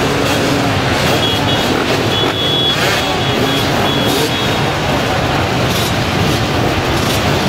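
Dozens of enduro motorcycle engines running and revving together at a mass start, a dense, loud, steady wall of engine noise with pitches rising and falling.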